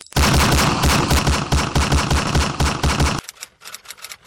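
Machine-gun sound effect: a rapid, even burst of shots, about seven a second, that cuts off about three seconds in. Fainter quick ticks follow.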